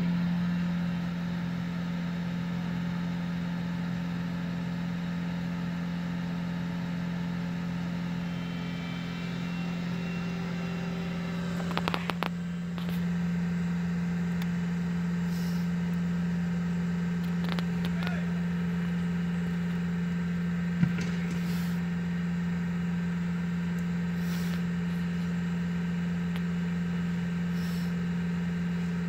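A vehicle engine idling with a steady low hum, heard from inside a car's cabin. A short rattle of clicks comes about twelve seconds in, and a single sharp knock about twenty-one seconds in.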